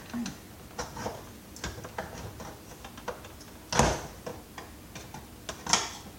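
Irregular clicks and ticks of tools working at a stubborn part of a vacuum cleaner's hard plastic body during a teardown, with a sharp loud knock about four seconds in and another near the end.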